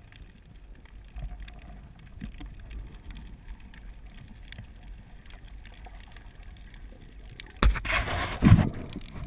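Muffled underwater sound as heard through a camera housing: a low rumble with scattered faint clicks. Near the end comes a loud rush of a scuba diver's exhaled bubbles from the regulator, lasting about a second.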